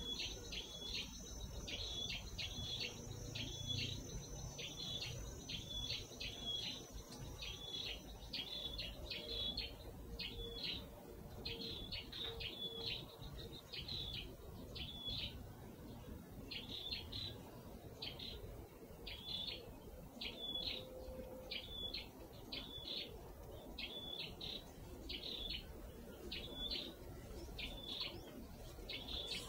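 A bird chirping over and over: short, high chirps repeated steadily, a little more than one a second.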